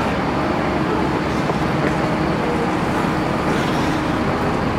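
Airport apron passenger bus with its engine running steadily.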